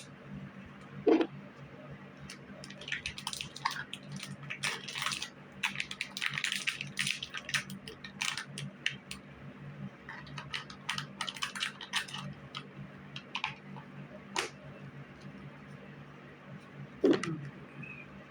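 Small items being handled and packed: clusters of light clicks, taps and rustles, with a louder knock about a second in and another near the end, over a steady low hum.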